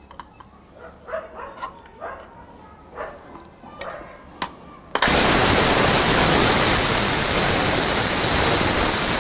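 A few light knocks, then about five seconds in a pressure cooker starts hissing loudly and steadily: steam venting as its whistle weight is lifted with a ladle to let off the pressure after cooking.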